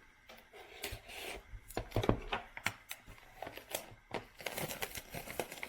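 Cardboard trading-card hobby box being opened by hand: irregular tearing, scraping and rubbing of cardboard with short clicks and taps as the flaps are worked loose.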